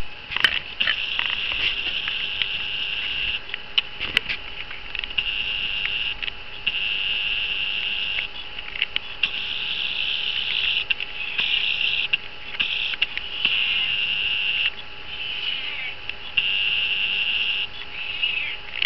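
Crickets chirping in long, steady trilling stretches of a second or two, broken by short pauses, with a few faint clicks near the start.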